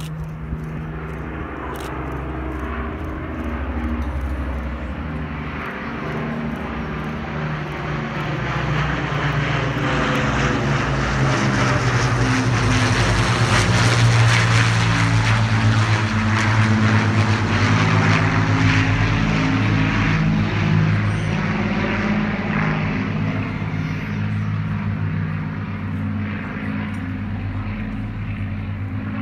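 Avro Lancaster bomber and Hawker Hurricane fighter flying past overhead, their Rolls-Royce Merlin V12 piston engines droning steadily. The sound swells to its loudest about halfway through as they pass directly over, with a sweeping, phasing whoosh, then eases off as they move away.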